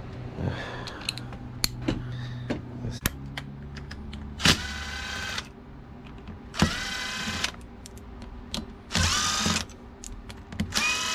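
A power driver whirs in four short bursts of about a second each, spinning out the bolts that hold the refrigerant line manifolds on an A/C compressor. Small clicks and knocks of metal parts come between the bursts.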